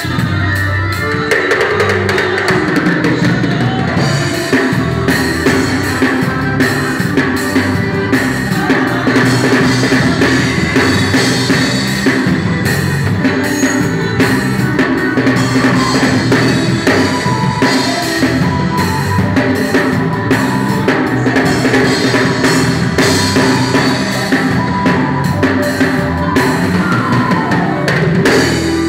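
Live band music led by an improvised drum kit groove and fills, with snare, bass drum and cymbals played over held electric guitar and keyboard chords. Just before the end the drumming stops and a low chord rings on.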